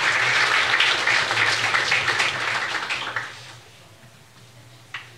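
Audience applauding in a meeting room, a dense patter of clapping that dies away about three and a half seconds in.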